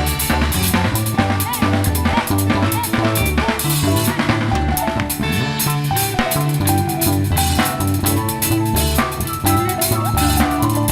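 Live band music driven by a full drum kit, with snare and bass drum hits in a steady beat over sustained bass notes and pitched instrument lines.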